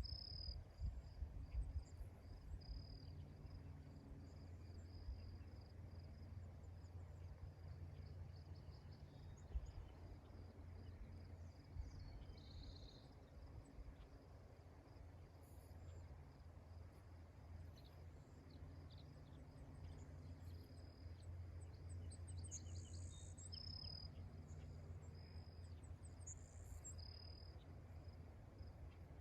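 Crickets chirping faintly in an even, steady pulsing, with a few brief high chirps at the start and again about three-quarters of the way through. A low rumble runs underneath.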